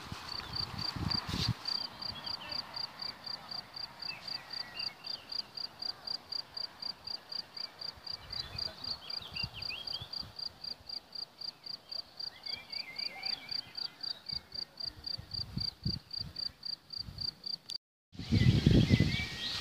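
A cricket chirping in a steady, even rhythm of about four chirps a second, with faint bird calls behind it. Near the end it cuts off suddenly and gives way to louder low rumbling noise.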